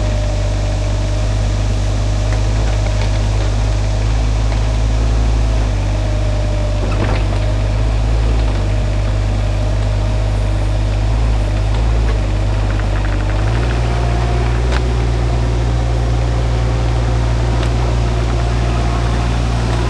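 Shantui mini excavator's engine running steadily, its note stepping to a new pitch about two-thirds of the way through, with a few faint knocks over it.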